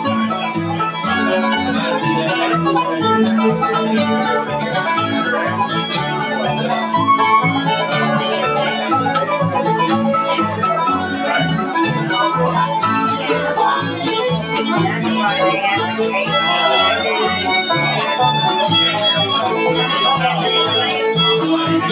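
Bluegrass band playing live: fiddle, mandolin and acoustic guitar, with low bass notes keeping a steady beat.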